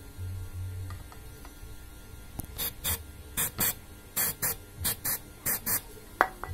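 Gas canister's valve giving short hissing squirts of gas as it is pressed into a PVC toy cannon's gas inlet, about ten squirts, mostly in quick pairs. So many presses are needed because the canister is nearly empty. A sharp click near the end.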